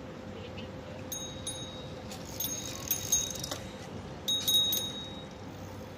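Small metal objects jingling and clinking with a bright, bell-like ring, in bouts about a second in, again from about two seconds, and loudest around four seconds. A faint steady hum runs underneath.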